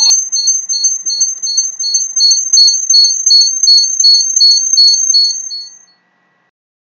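A steady high-pitched tone with a second high tone pulsing about three times a second over it. It fades out and stops about six seconds in.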